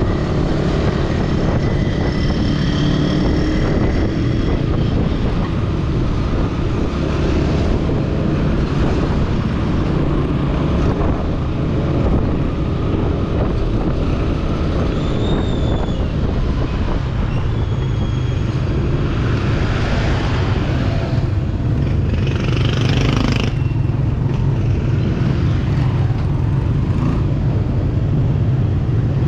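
Motor scooter riding through town traffic: a steady rumble of its engine and wind on the microphone, with other vehicles around it. A louder rushing swell about twenty seconds in, as of a vehicle passing close.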